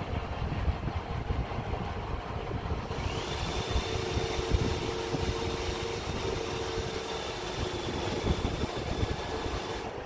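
iRobot Roomba i7 robot vacuum running as it drives across a tiled floor, a steady motor and brush hum. A thin steady whine joins about three seconds in.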